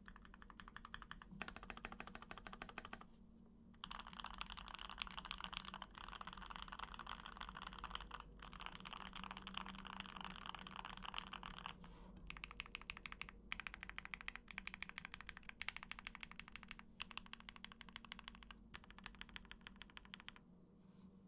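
Fast typing on a Keychron Q1 mechanical keyboard with factory-lubed Gateron Oil King linear switches: a dense run of key clacks in bursts, with brief pauses between runs.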